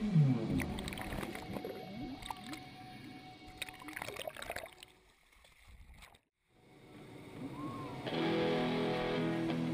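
Sea water splashing and sloshing against a boat's hull and ladder as a diver climbs out, briefly going muffled underwater, then fading away. Near the end, guitar music starts.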